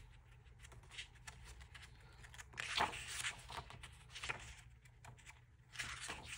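Pages of a paper diary being turned and handled, giving a few soft, brief rustles.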